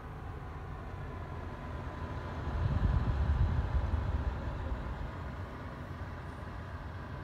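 Steady low rumbling noise, with no crackle or pops of burning wood. It swells louder for about two seconds in the middle, over a faint steady high hum.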